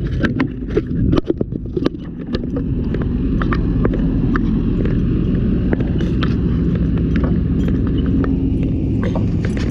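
Steady low engine rumble that settles in about two seconds in. It is preceded by a run of sharp clicks and rattles, like gear knocking about as someone moves.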